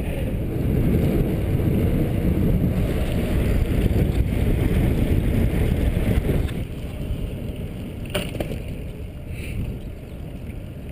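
Low wind noise on a GoPro's microphone inside its case, damped by cotton batting stuffed into the case, while riding a recumbent trike. It is louder for the first six seconds or so, then eases, with a faint click about eight seconds in.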